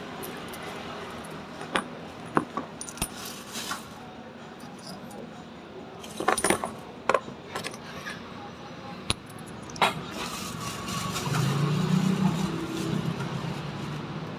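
Taiwanese dollar coins clinking as a hand sets them down and slides them together on a cardboard-covered counter: a string of separate clinks. In the last few seconds a low steady hum grows louder beneath them.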